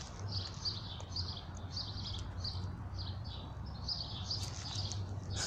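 Birds chirping in a rapid, continuous series of short high chirps, two to three a second, over a steady low hum.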